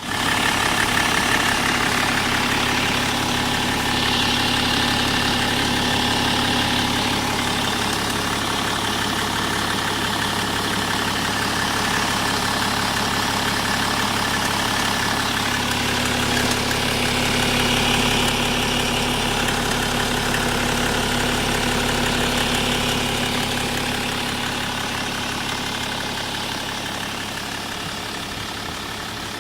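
A BMW E60 running steadily with a strange noise, which is why it was recorded; its cause is not identified. A higher hiss comes in twice, about four and about seventeen seconds in, over the steady low hum, and the whole sound eases off near the end.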